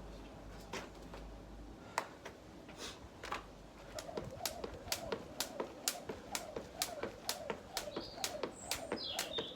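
Jump rope slapping the ground: a few scattered taps, then about four seconds in a steady skipping rhythm of roughly three slaps a second. Bird chirps come in near the end.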